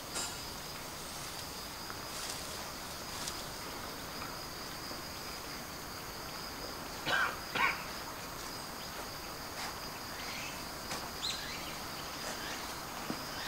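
Steady high-pitched insect chirring in the background, with two short animal calls about seven seconds in, half a second apart.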